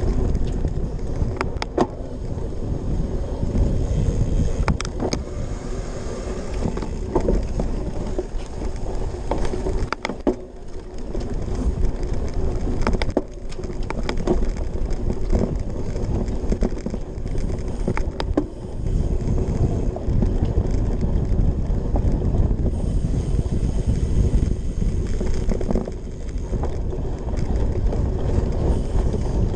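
Cyclocross bike ridden fast over rough grass, heard through a handlebar-mounted camera: a steady rumble from the knobby tyres and frame on the turf, with frequent sharp clicks and rattling knocks as the bike bounces over the ground.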